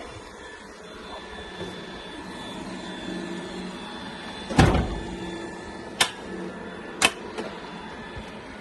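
Solzaima pellet stove switched on and starting its ignition cycle after an igniter replacement: a steady mechanical hum, with a few sharp clicks and one heavier knock about halfway through.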